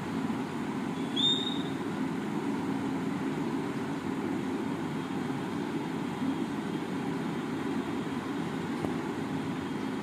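Steady low background rumble, with one short high chirp a little over a second in.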